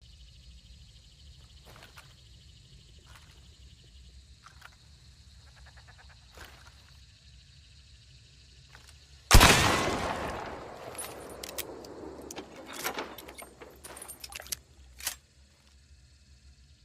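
A Maynard rifle fired once: a single loud shot about nine seconds in that rings out and fades over a second or so. Small metallic clicks of handling come before it, and a run of sharper clicks and knocks follows.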